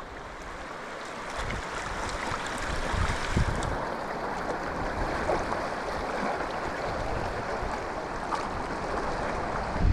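Steady rushing noise of wind and sea surf along a shoreline. Uneven low rumbles of wind buffet the microphone, strongest about three seconds in and near the end.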